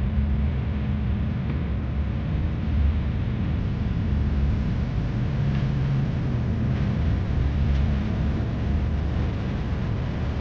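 Steady low drone of a heavy diesel engine running at a constant pace, under an even rushing noise.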